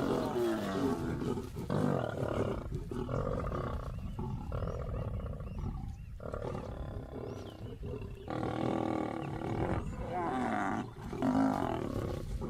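Lions snarling and growling at a kill in a string of harsh calls broken by short pauses, quieter in the middle. This is aggressive snarling over food.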